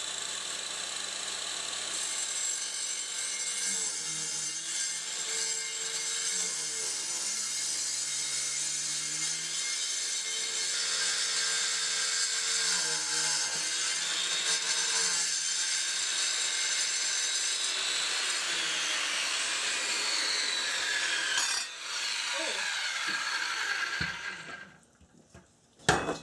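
Skil circular saw with a diamond turbo-rim blade cutting a 45-degree bevel through a granite countertop slab: a steady, high-pitched whine with the rasp of the blade in the stone. About 24 seconds in it winds down and stops, and a short sharp knock follows near the end.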